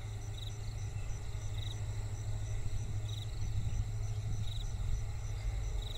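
Insects chirping in vegetation: a steady run of short high chirps, three or four a second, with a short buzzing trill repeating about every second and a half. A low steady rumble lies underneath.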